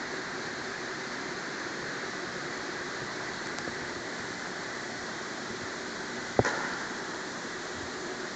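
Steady hiss of workshop background noise, with one sharp knock about six and a half seconds in.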